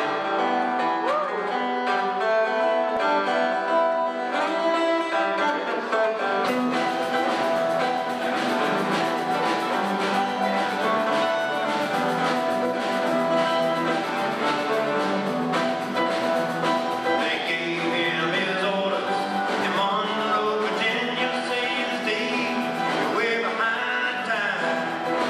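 Live band music: guitars playing, with drums coming in about six seconds in and a steady beat after that.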